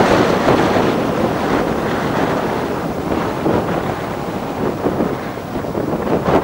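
Gusty wind buffeting the microphone, strongest at the start and easing off through the middle, with a few sharper gusts toward the end.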